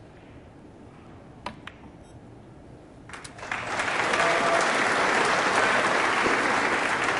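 Two sharp clicks of snooker balls about one and a half seconds in, then more clicks near three seconds. The audience then breaks into loud applause that holds steady.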